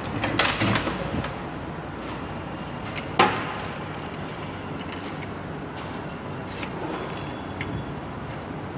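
Tools and engine parts being handled: a short clatter of clicks and knocks, then one sharp knock about three seconds in, over a steady background hum.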